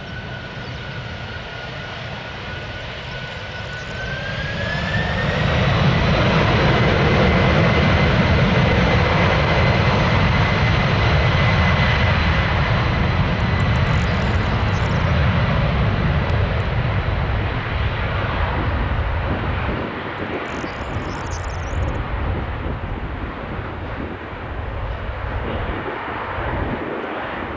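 Boeing 747 cargo jet's four engines spooling up on the runway: a whine climbs in pitch about four seconds in and the engine noise swells to a loud, steady level, then slowly eases as the aircraft rolls away.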